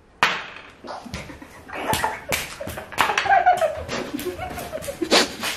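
Two people reacting out loud to a mouthful of chilli-spiked ice cream: a run of sharp, breathy outbursts and short cries rather than words, with a few sharp knocks as one jumps up from the sofa.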